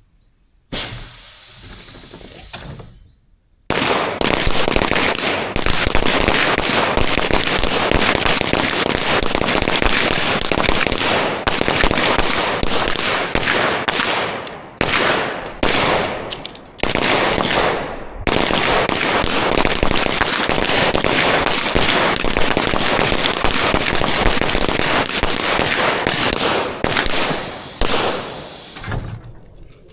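A line of pistols firing at once in a timed string, the shots overlapping into a dense, continuous crackle from about four seconds in. The firing thins briefly a few times near the middle and tails off near the end.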